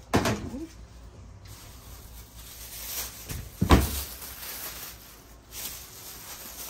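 Knocks and handling noise: a sharp knock right at the start, then a louder, deeper thump a little past halfway, with faint rustling in between.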